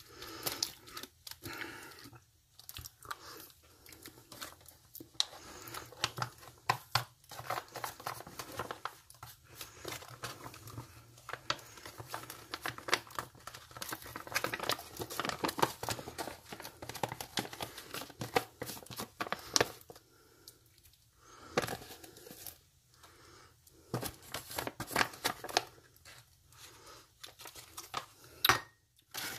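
Crinkling and rustling of an MRE entrée's foil retort pouch as a spoon scrapes the food out of it, in irregular clusters with short pauses.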